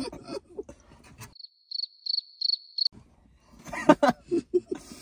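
Cricket-chirp comedy sound effect: a thin, high chirp pulsing about three times a second for a second and a half over dead silence, the 'crickets' gag for an awkward pause. Men's laughter bursts out a second later.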